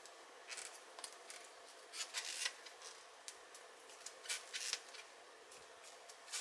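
Crochet hook working yarn in single crochet stitches: faint, scratchy rustles of yarn being hooked and pulled through, coming in short irregular bursts.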